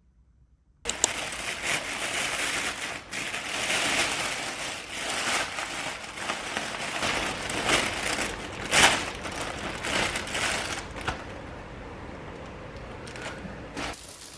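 Thin plastic carrier bag crinkling and rustling loudly as it is rummaged through and unpacked, beginning about a second in and easing off after about eleven seconds.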